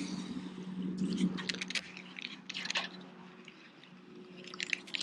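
Steady low electric hum, typical of a boat's electric trolling motor, with irregular clicks and scrapes of fishing gear being handled.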